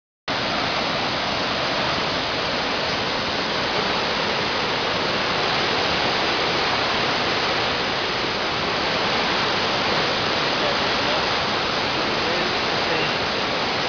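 A river in flood rushing fast: a steady, dense wash of turbulent water that holds at one level throughout.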